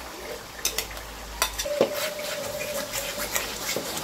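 Spatula stirring thick tomato stew in a metal pot, with a few sharp metal clinks; one, about two seconds in, leaves a short ringing tone.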